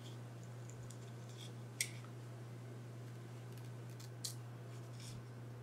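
Small scissors snipping through clear PET tape: quiet scattered snips, with two sharper snips about two seconds in and just after four seconds in, over a steady low hum.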